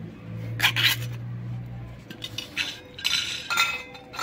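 Metal can of cat food being opened by its pull-tab: a sharp double click less than a second in, then ringing metallic clicks and scraping as the lid is peeled off, about three seconds in. A low hum runs under the first two seconds.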